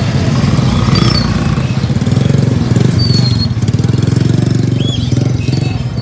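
A motorcycle engine running close by with a low, steady pulse, and a few short high chirps from caged birds over it.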